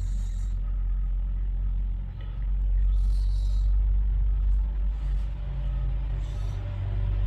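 Steady low rumble and hum under three short swishes of tarot cards being slid and laid on a cloth-covered table, the first at the start, then about three seconds in and about six seconds in.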